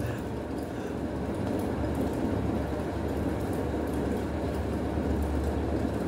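Steady low background rumble with no distinct sounds standing out over it.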